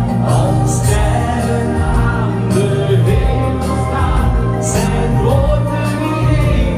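A man singing a Dutch-language song into a microphone over loud backing music with a steady beat.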